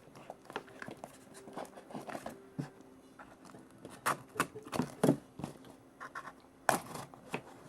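Rustling, tapping and clicking of a shipping package being handled and opened, with a few sharper knocks about four, five and nearly seven seconds in.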